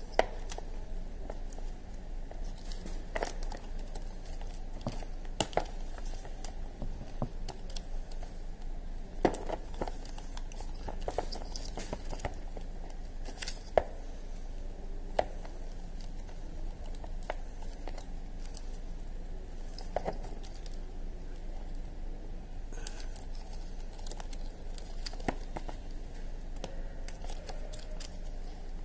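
Wires and plastic plug-in connectors of a hazard-light wiring kit being handled and pushed together: rustling and crinkling with a handful of sharp clicks scattered through, as the connectors snap home.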